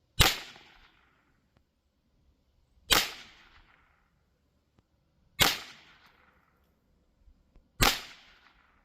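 Huben GK1 Mini .30-calibre air pistol firing four shots about two and a half seconds apart. Each is a sharp crack that rings out for about a second.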